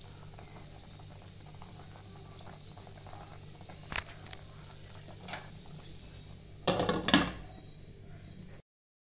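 Food cooking on the stove, with a steady low sizzle and hum. There are a couple of light utensil clicks, then a louder clatter of stirring in the pan about seven seconds in, and the sound cuts off suddenly near the end.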